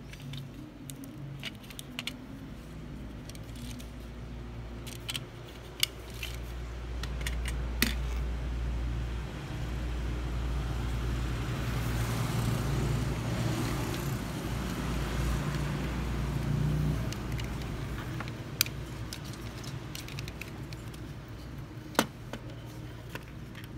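Die-cast metal toy cars being handled, with sharp clicks as their small doors and parts are worked. For several seconds in the middle, a steady rolling rumble as a toy car is run along the tabletop.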